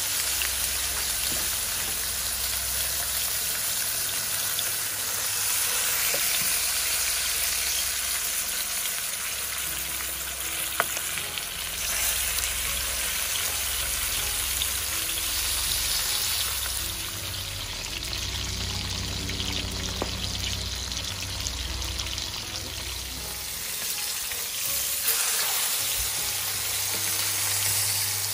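A whole nenue (Hawaiian rudderfish) sizzling steadily as it pan-fries in hot oil in a skillet, with a single sharp click about eleven seconds in.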